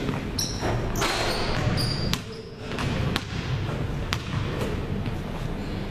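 Basketballs bouncing on a hardwood gym floor, a series of sharp thuds about a second apart, with a few short high sneaker squeaks on the court in the first couple of seconds.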